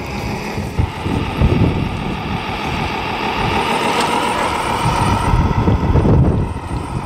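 Electric 6x6 RC truck's motor and gears whining as it reverses a boat trailer over gravel, with gusts of wind buffeting the microphone.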